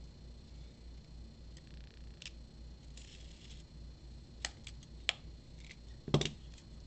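Utility knife cutting through blue tape wrapped around a small package: soft scraping and slicing, with a few sharp clicks and taps as the package and knife are handled.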